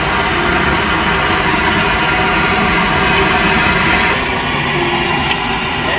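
A fishing boat's engine running steadily.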